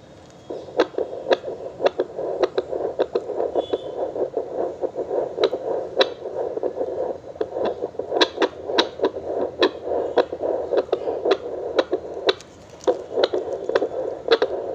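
BPL FD9714 fetal Doppler's loudspeaker hissing, with many irregular crackling clicks over the hiss. It starts suddenly about half a second in.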